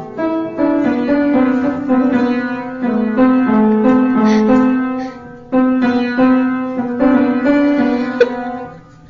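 Background piano music: a melody of short, stepping notes, briefly pausing about five and a half seconds in before going on.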